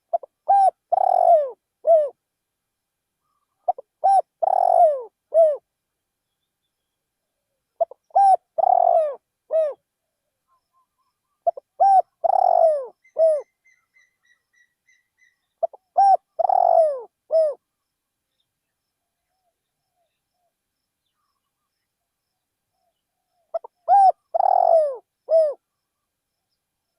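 Spotted dove cooing in repeated phrases of about four low notes, roughly every four seconds, with a longer pause before the last phrase. A faint string of short high peeps from another bird comes midway.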